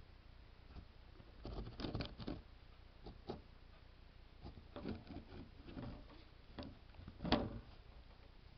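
Irregular soft knocks and rubbing from the underwater camera being handled against the tank, with a cluster of knocks about two seconds in and the loudest knock a little after seven seconds.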